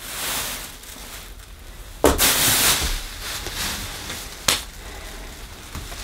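A thin plastic packaging bag crinkling and rustling as it is handled, with a louder rustle about two seconds in and a short sharp click a couple of seconds later.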